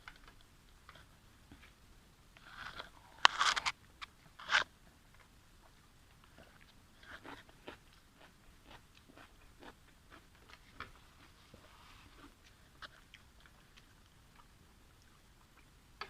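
A person eating: loud crunching bites about three seconds in and again about a second later, then quieter chewing with small scattered clicks.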